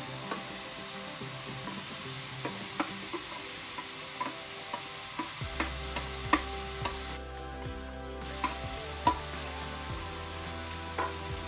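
Onion, ginger and tomatoes sizzling in oil in a wok as diced potatoes are scraped into it off a plate, with a metal spatula clicking and tapping against the plate and pan every second or so.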